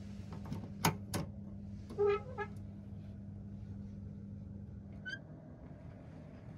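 Two sharp clicks from the keypad-locked safety box's latch and door as it is opened, followed about two seconds in by a short, loud tone, over a steady low hum.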